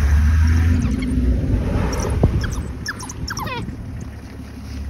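Open safari vehicle's engine running, loudest in the first second and then quieter. Over it, from about a second in, comes a quick series of short high chirping calls, some rising and some falling in pitch, which stop about three and a half seconds in.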